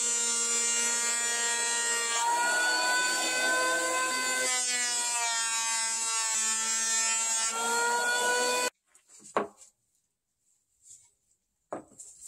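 Electric hand planer running on a wooden slab, a steady motor whine whose pitch dips and recovers a few times as the blades take the cut. It stops abruptly about nine seconds in, followed by two faint taps.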